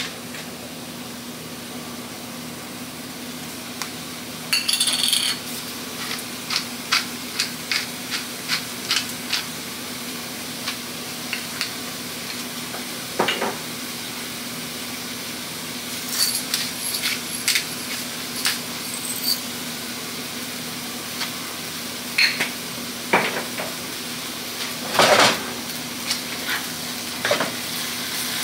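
Cauliflower rice sizzling in a nonstick pan over a steady low hum, while dishes and metal utensils clink and clatter, with short ringing clinks about five seconds in and again around sixteen to nineteen seconds. Near the end a wooden spatula starts stirring the rice in the pan.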